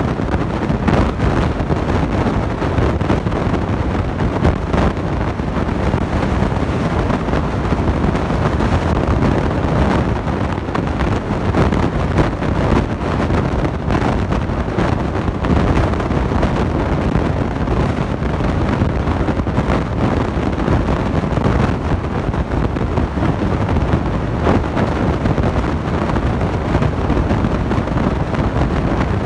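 Imbera glass-door beverage cooler's refrigeration unit, compressor and condenser fan, running as a steady, dense, low noise with no clear tone.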